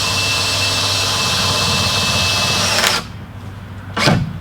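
Power drill running steadily as it drives a screw, stopping about three seconds in, then two short spurts near the end.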